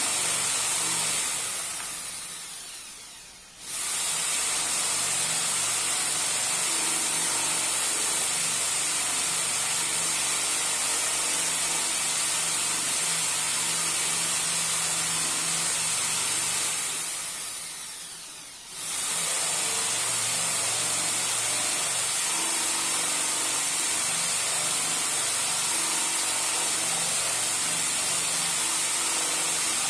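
Electric drill spinning a wooden dowel in a homemade lathe jig while sandpaper is pressed against it: a steady motor whine with a sanding hiss. Twice, once near the start and once a little past the middle, the drill is let off and winds down over about two seconds, then starts up again at once.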